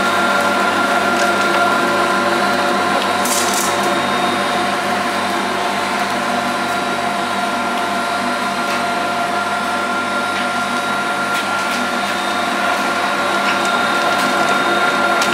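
Elektrokar electric meat grinder running steadily under load while grinding meat. It is a constant motor hum and whine that does not change.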